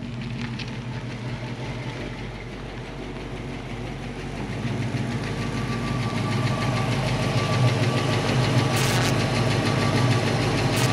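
1966 Ford Mustang's V8 engine running at a low, steady speed as the car rolls up close, getting gradually louder as it nears.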